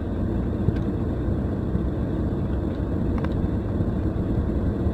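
Steady low rumble of a car's engine and road noise heard from inside the cabin, with a few faint clicks.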